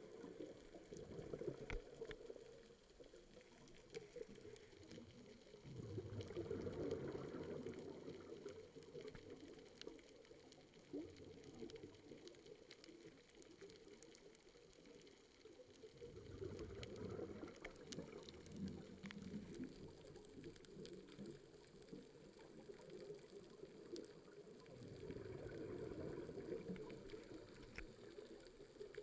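Scuba diver's exhaled bubbles from the regulator, heard underwater as a muffled bubbling that swells roughly every nine or ten seconds with each breath out. Faint scattered clicks run underneath.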